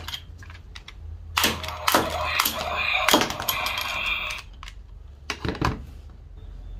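Plastic toy gun firing small plastic discs at plastic bowling pins on a wooden board: sharp clacks from the shots, then pins knocked over and discs clattering across the wood. The busiest clatter is from about one and a half to four and a half seconds in, with a few more knocks after five seconds.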